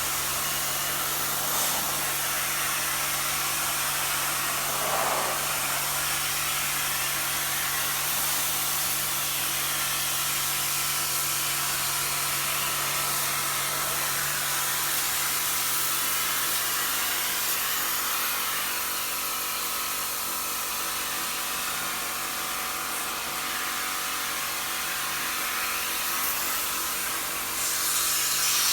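Portable high-pressure washer running, its motor humming steadily under the hiss of a water jet spraying into an air conditioner during cleaning. The hiss grows louder near the end.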